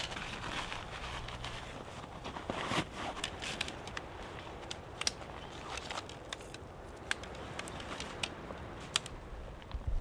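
Scattered sharp clicks, rustles and crunches from pitching a one-person tent in snow, over a low wind rumble.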